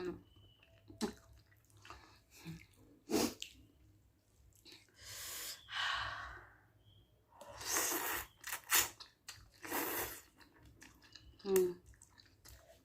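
Close-up eating sounds of instant ramen: scattered chewing clicks and wet mouth sounds, with several breathy slurping bursts in the middle. A brief hum-like vocal sound comes near the end.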